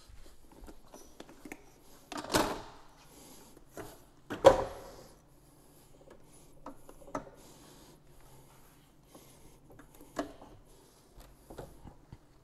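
Scattered sharp knocks and metal clatters from aluminium fold-up camper steps being stepped on and folded, the loudest about four and a half seconds in.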